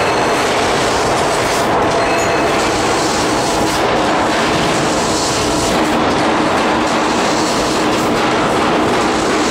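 Laser cutting machine cutting steel sheet: a loud, steady hiss and rumble from the cutting head and machine. The high part of the hiss briefly drops every two seconds or so.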